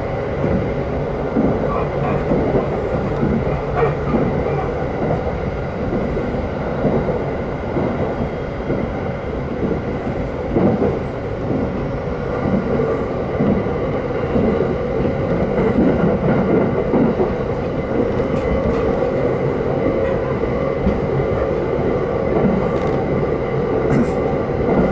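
Inside the cabin of a JR East Takasaki Line electric train running at speed: a steady rumble of wheels on rail with a steady hum and irregular low clacks from the track.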